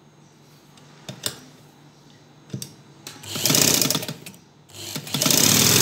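Domestic sewing machine driven by an add-on electric motor, stitching in two short runs of about a second each, going back over the end of the seam to lock it; a couple of light clicks come before the first run.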